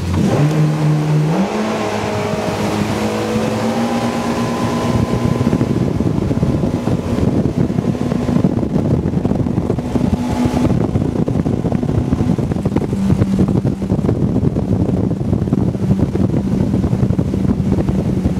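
Twin inboard engines of a Yamaha 242 Limited jet boat accelerating hard, the engine note climbing in steps over the first couple of seconds and then running steady at speed over a rush of wind and water noise. About two-thirds of the way through the note drops a little and holds.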